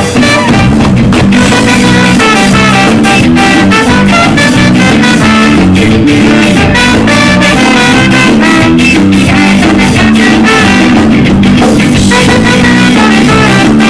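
Ska band playing live: trombone and trumpet over electric guitar and drums, loud, with an even beat.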